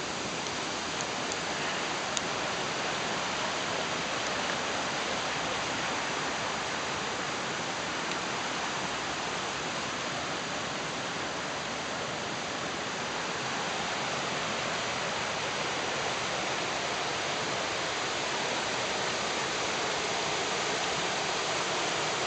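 A creek rushing and splashing over rocks in small cascades: a steady wash of water noise that grows a little louder near the end.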